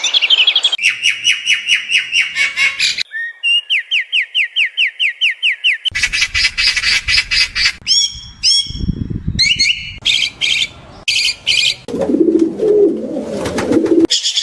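A string of different animal calls spliced one after another, mostly fast runs of high chirps and trills that switch abruptly every few seconds, with a lower warbling call near the end.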